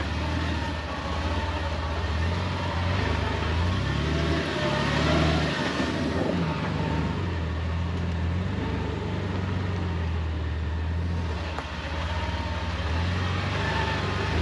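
Jeep engine running as it is driven slowly along an off-road trail. The engine note rises and falls a few times as it is given gas and eased off.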